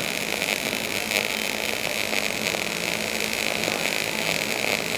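MIG welding arc burning steadily as an uphill root pass is laid in a vertical groove joint on plate: a continuous crackling hiss with no breaks.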